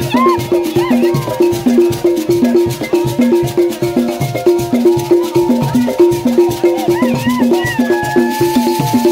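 Up-tempo Cameroonian bend-skin dance music: a fast, even percussion rhythm of about three strokes a second over a repeating low two-note figure.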